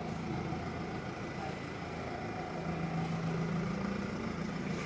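Vehicle engine running steadily with a low drone.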